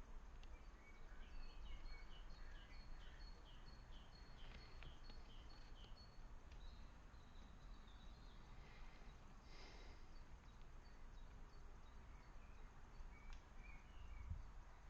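Faint outdoor birdsong: a songbird repeats a quick run of high chirps over the first few seconds, and more short calls come near the end, over a low background rumble.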